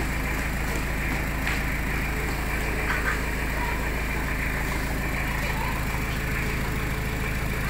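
Toyota Hilux LN106's four-cylinder diesel idling steadily through an aftermarket HKS exhaust muffler, an even low drone with no revving.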